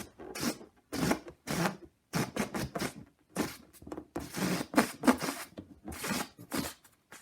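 Balloon played to imitate ducks quacking: a run of short, scratchy squawks in quick irregular groups that stops just before the end.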